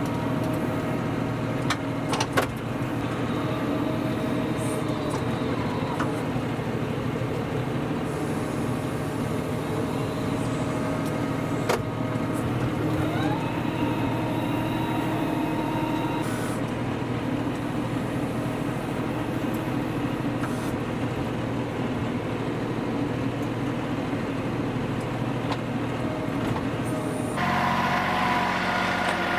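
John Deere 5075E tractor's diesel engine running steadily under load while its front loader digs and dumps dirt. There are a couple of sharp knocks about two seconds in and another about twelve seconds in, and a whine that rises about thirteen seconds in and holds for a few seconds. Near the end the sound switches abruptly to a different engine.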